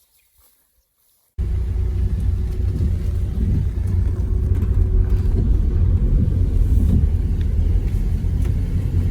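Car driving, a loud steady low rumble of road and engine noise that cuts in abruptly about a second and a half in, after near silence.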